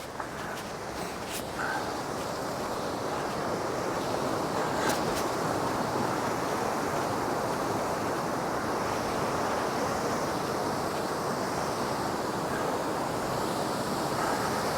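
Waterfall: a steady rush of falling water, growing louder over the first few seconds and then holding even.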